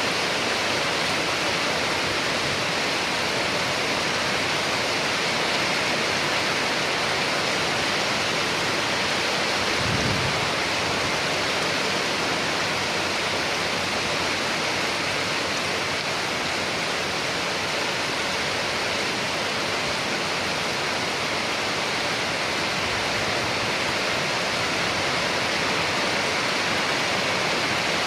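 Steady heavy rain falling, a dense even hiss with no let-up. About ten seconds in there is one brief low thump.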